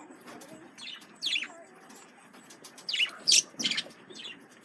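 Male budgerigars chirping: short, sharp, high chirps, one about a second in and a quick run of three around three seconds in.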